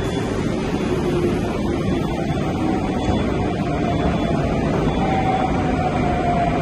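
Moscow Metro train running along the platform: a steady rumble with a faint whine above it.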